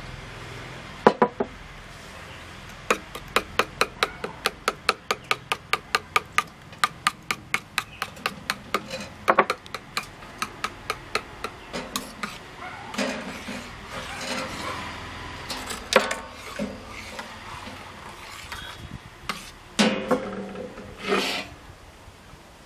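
A steel spoon beating egg batter in a small stainless steel pot, clicking against the pot about three or four times a second for several seconds, then softer stirring and scraping with a few louder knocks near the end.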